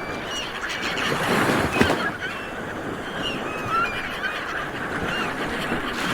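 Sea waves washing in, swelling about a second in and again near the end, with many short bird calls over them.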